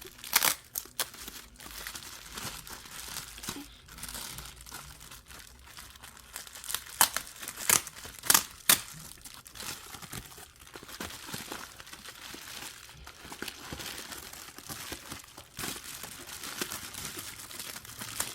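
Protective packaging crinkling and rustling as it is pulled open and handled, with some tearing and a run of sharp crackles, loudest a little before the middle.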